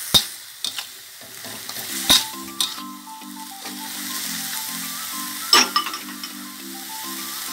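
Pork and pickled bamboo shoots sizzling in a hot wok while a metal spatula scrapes and clanks against the pan, with a few sharp strikes. A simple background tune comes in about two seconds in.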